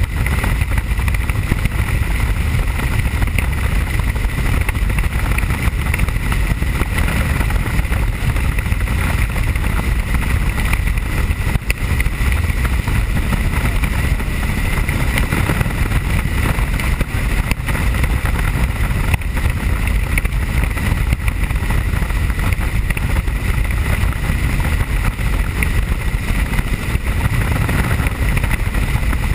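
Helicopter in steady cruising flight, heard from inside the cabin: a constant loud drone of rotor and engine with a steady high whine over it.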